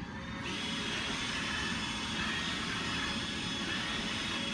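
iRobot Roomba 880 robot vacuum running: a steady whir with a thin high whine that comes up about half a second in, as its vacuum motor spins up after being switched back on.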